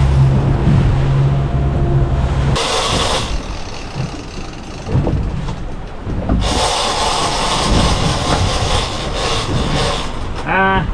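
Boat engine running with a steady low hum that stops about two and a half seconds in, leaving a rushing noise of wind and water that swells twice. A man's voice starts at the very end.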